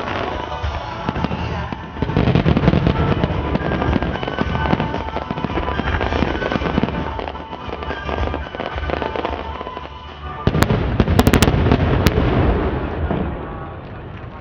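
Aerial fireworks bursting and crackling in quick succession, with heavier volleys about two seconds in and again near the end, while music plays along.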